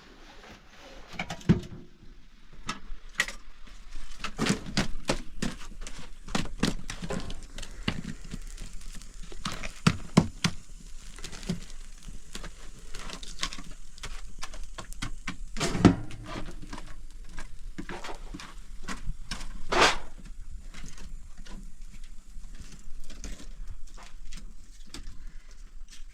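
Irregular clatter of knocks and clicks, some sharp and loud, scattered unevenly, with the strongest strikes about ten, sixteen and twenty seconds in.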